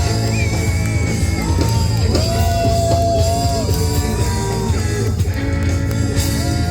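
Live rock band playing: electric guitar, bass and drums, with long held notes that bend and slide in pitch over the beat.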